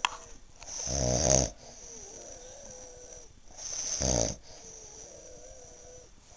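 A man snoring in his sleep: two loud snores about three seconds apart, each lasting about a second.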